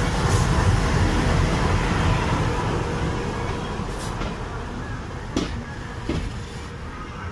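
Train running with a steady low rumble that slowly fades, with a few sharp knocks from the wheels or carriage near the end.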